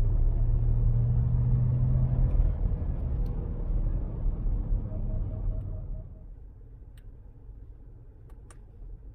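Geely Atlas Pro's 1.5-litre turbocharged three-cylinder engine and road noise during an acceleration run, first a loud steady drone at one pitch, then easing off about two and a half seconds in as the car slows. The noise fades to a quiet hum about six seconds in. A quick run of soft beeps comes just before that, and a few light clicks come near the end.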